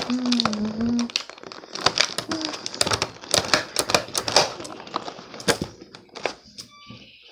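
Scissors cutting through a stiff clear plastic toy package, the plastic crackling and crinkling in irregular sharp clicks.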